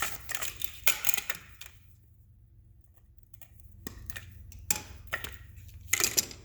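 Electrical wire being handled and cut to length with cutters: rustling and scraping, with a few sharp snips in the middle.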